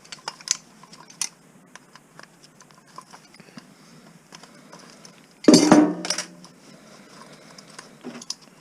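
Small metal parts being handled while a cast-aluminium light fixture is taken apart: scattered light metallic clicks and clinks, with one louder clatter about five and a half seconds in.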